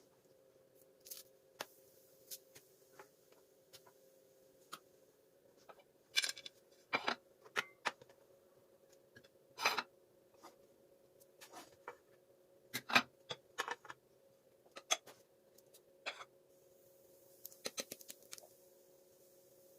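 Scattered clicks, knocks and short clatters of things being handled on a kitchen counter, over a steady faint hum.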